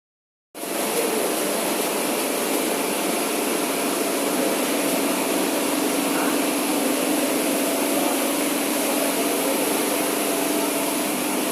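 Steady hum and hiss of running factory machinery, starting abruptly just after the beginning and holding even throughout.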